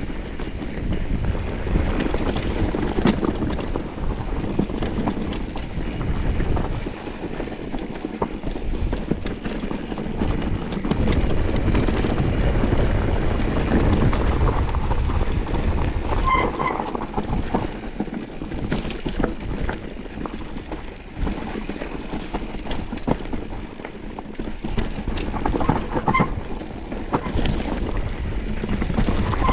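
Wind buffeting the microphone of a camera riding on a mountain bike down a rocky trail, with the bike and tyres rattling and clattering over stones, and a few short squeaks.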